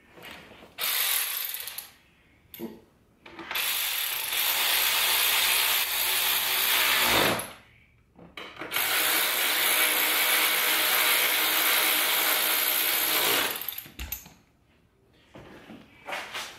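A cordless power driver runs in three spells while driving 7mm screws: a short burst about a second in, then two long runs of several seconds each. The middle run winds down in pitch as it stops.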